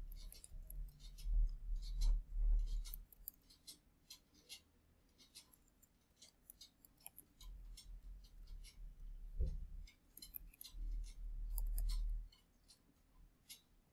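Typing on a computer keyboard: runs of light key clicks with short pauses, over a low rumble that comes and goes.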